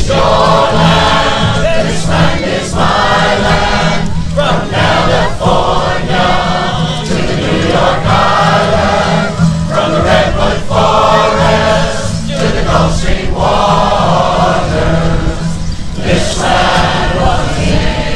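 Large mixed chorus singing, accompanied by acoustic guitars and upright basses, in phrases broken by brief pauses every second or two.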